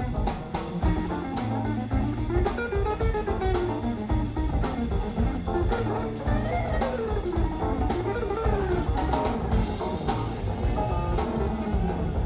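Background music: a guitar playing a bluesy melody over a drum kit's steady beat.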